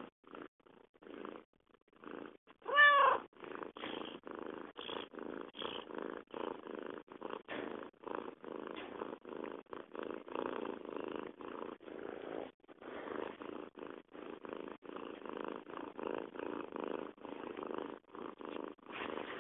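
Domestic cat purring close up, a steady rhythmic rumble. About three seconds in there is one short pitched call.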